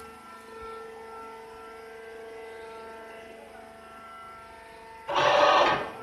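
Wood shaving baler machinery running with a steady whining hum, broken by a short, loud rush of noise about five seconds in.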